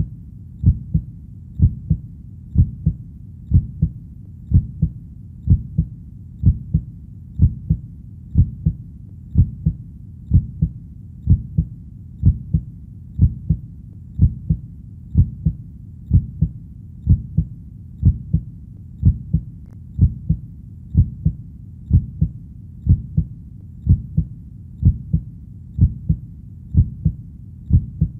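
Heartbeat, steady and even: low double thumps (lub-dub), about one beat a second, over a faint low background.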